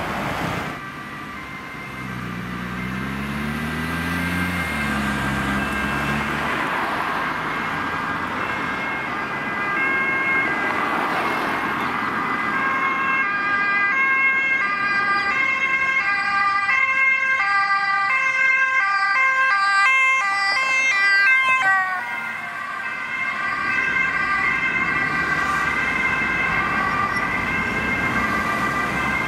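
Road traffic, with a car engine changing pitch in the first seconds. From about halfway through, an ambulance's two-tone siren alternates between two pitches and grows louder as it approaches. A little past two-thirds of the way, the siren drops in pitch as the ambulance passes, then carries on at the lower pitch as it drives away.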